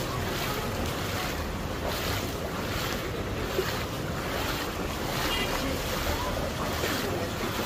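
Footsteps wading through shallow floodwater on a paved street, sloshing and splashing about twice a second.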